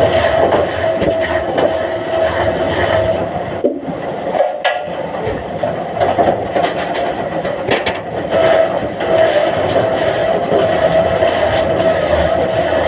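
Heavy log-handling machinery running continuously with a steady high whine and rumble, with a brief lull about four seconds in and some metallic clatter around the middle.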